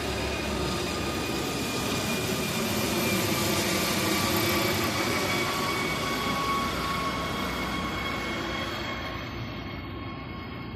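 Rescue helicopter flying low overhead: rotor noise with a steady turbine whine. It grows to its loudest about four seconds in and fades over the last few seconds as it moves away.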